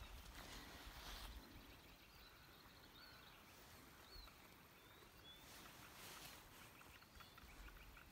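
Near silence in the open air: a faint low wind rumble and a few faint, short bird chirps.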